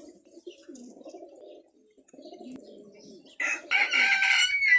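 Pigeons cooing in low, rolling phrases, then a rooster crowing loudly from about three and a half seconds in, the loudest sound here.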